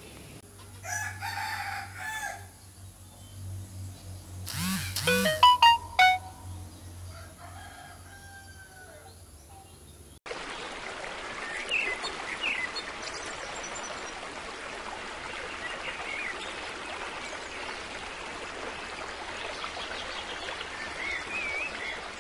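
A rooster crowing, once faintly and then louder and closer about five seconds in. After an abrupt change about ten seconds in, a steady rushing like running water with scattered bird chirps.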